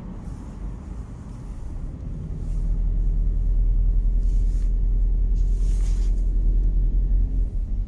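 Low road and traffic rumble heard from inside a VW Golf's cabin while driving through a road tunnel, growing louder about two and a half seconds in and easing off near the end.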